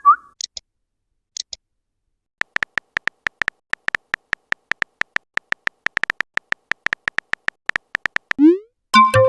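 Simulated phone-keyboard typing clicks from a chat-story app: a rapid run of short, even ticks lasting about six seconds, after a couple of faint high blips and a short pause. Near the end a short rising pop marks a message being sent, followed by a louder chime-like burst.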